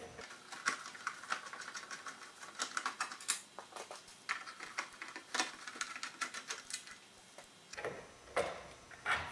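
Hand screwdriver backing screws out of a fluorescent shop light's sheet-metal cover: a run of small, irregular clicks and scrapes. Near the end come a few louder knocks as the metal cover is gripped and handled.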